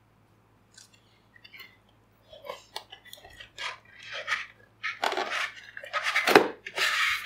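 Cardboard box flaps and plastic packaging being handled as the box is unpacked: scattered crackles and rustles begin about a second in and grow louder and denser over the last couple of seconds.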